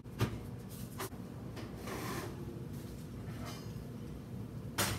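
Handling sounds at an electric kitchen oven with a foil-covered baking pan: a few clicks and knocks of the oven door and pan, soft scraping and rubbing as the pan slides on the rack, and a sharper knock near the end.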